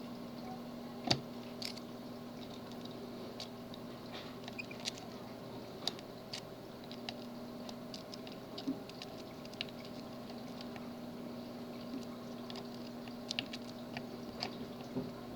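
A tubular lock being picked: scattered small clicks and ticks as the pick works the pins, the sharpest about a second in, over a steady faint hum.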